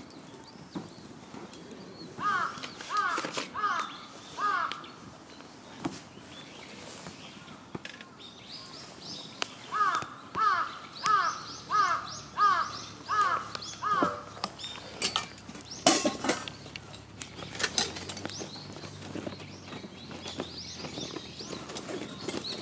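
A crow cawing in two runs of harsh, evenly spaced calls: four about two seconds in, then seven more from about ten seconds in. Smaller birds chirp faintly higher up, and a few sharp clicks come near the sixteen-second mark.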